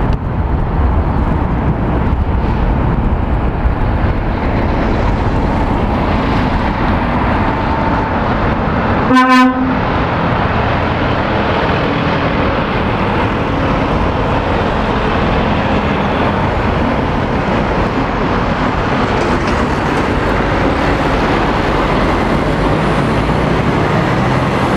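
Heavy lorries passing, diesel engines and tyres running steadily, with one short vehicle horn toot about nine seconds in.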